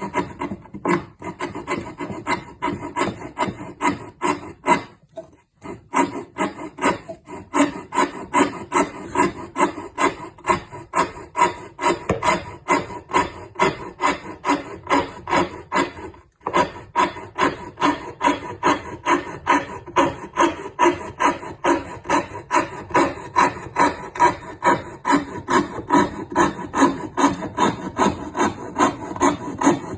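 A hand woodworking tool drawn back and forth across wood in quick, even strokes, about two or three a second, with two short pauses, around five and sixteen seconds in.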